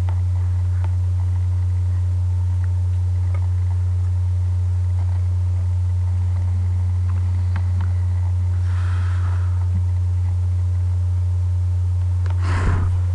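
A steady low hum, with a few faint clicks and a short rustle near the end.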